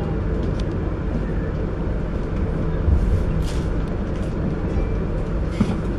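Steady low rumble of a passenger train running, with a few faint clicks and knocks over the top.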